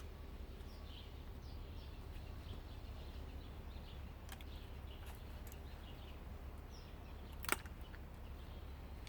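Birds chirping faintly over a steady low rumble, with a sharp click about seven and a half seconds in and a fainter one earlier.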